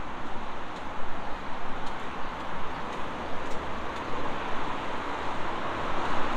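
Road traffic noise in a city street: a steady wash of passing cars, swelling and easing a little.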